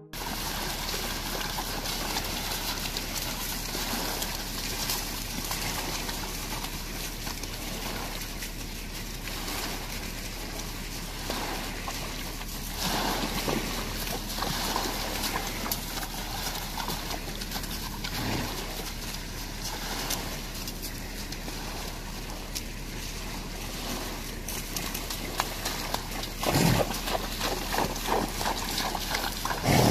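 Horses wading along the edge of a lake, their hooves splashing in the shallow water and stepping on pebbles, over a steady wash of water with a low hum. A few louder splashes stand out partway through and near the end.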